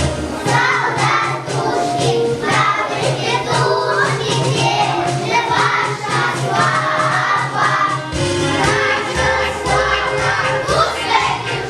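A group of young children singing a song together in chorus over a recorded musical accompaniment.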